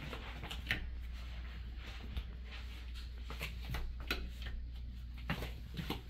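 Footsteps going down a flight of stairs: soft, irregular thuds and clicks over a steady low hum.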